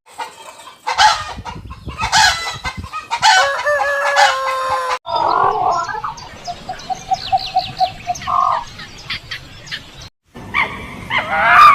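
Rooster crowing, ending in one long held note, then chickens clucking with short repeated calls. A different animal's yelping starts near the end.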